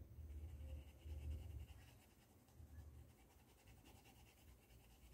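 Faint, soft rubbing of a paintbrush stroking acrylic paint onto a fabric dish towel, with low muffled bumps in the first two seconds.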